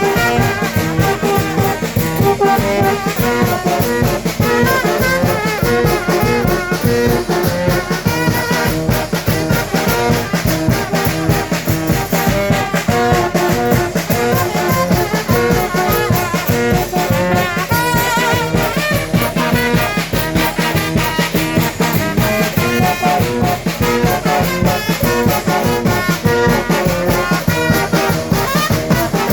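Mexican banda, a brass band, playing a lively piece: brass instruments carrying the tune over a steady, even drum beat.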